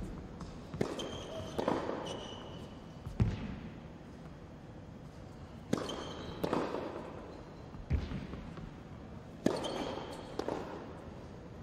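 Tennis balls struck by rackets and bouncing on an indoor hard court during a practice rally: sharp pops in groups about every four seconds, echoing in the hall, with short high squeaks of tennis shoes on the court surface.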